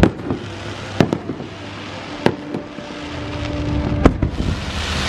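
Fireworks show: four sharp bangs of aerial shells about a second apart, with smaller pops between. A rising hiss builds near the end.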